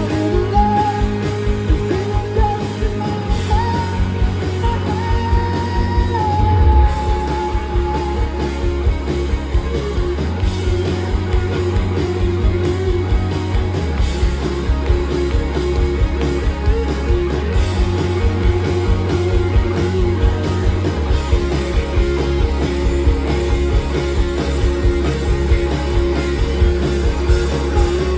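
Live rock band playing through a stage PA, with electric guitars, bass and a steady drum beat under sung vocals.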